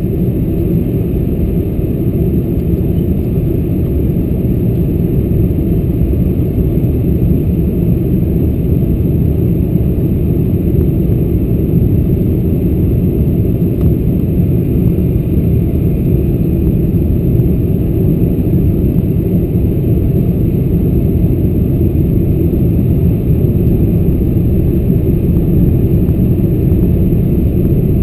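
Steady, loud low rumble of airflow and jet engines heard inside the passenger cabin of a Boeing 747-400 on its approach.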